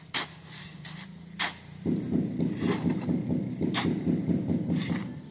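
Steel hoe chopping and scraping through stiff, fairly dry cement mortar in a mixing pit, with sharp knocks as the blade strikes. From about two seconds in, a low mechanical rumble starts and keeps going underneath.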